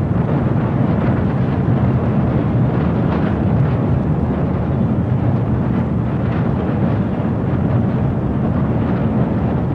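A loud, steady, deep rumbling noise that runs without a break and never rises or falls.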